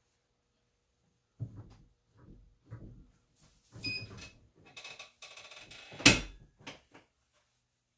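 Handling knocks and rustling as a t-shirt and transfer are set on a heat press, a short electronic beep about four seconds in, then a loud clunk about six seconds in as the heat press is clamped shut for pressing.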